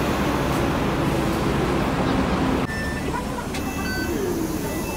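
Bus engine running with traffic noise, a loud steady rumble that drops off suddenly about two and a half seconds in. A quieter hum follows, with a few short high electronic beeps.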